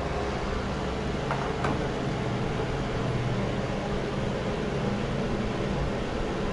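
Mondial A-08 electric fan heater running: a steady rush of air from its fan over a low motor hum, with two faint clicks about a second and a half in.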